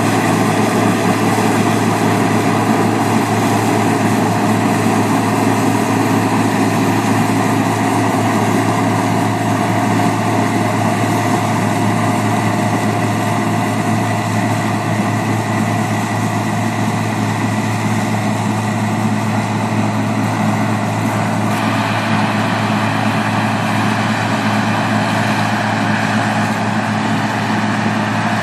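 Massey Ferguson 27 combine harvester running steadily, a continuous engine drone with no pauses. About two-thirds of the way through, the sound shifts slightly.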